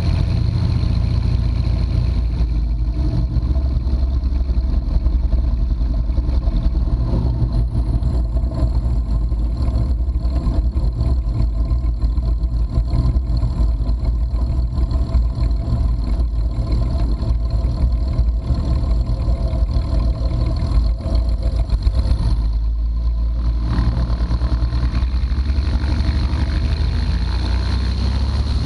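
1957 Cessna 172's six-cylinder Continental O-300 engine and propeller running steadily, with a constant low drone that eases slightly for a moment about three-quarters of the way through.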